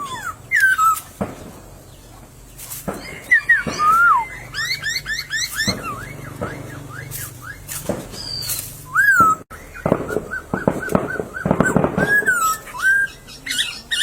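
Laughingthrushes (poksay) singing a varied, loud song of slurred whistles that rise and fall, quick runs of notes and harsh chattering, with a dense rattling burst about two-thirds of the way through.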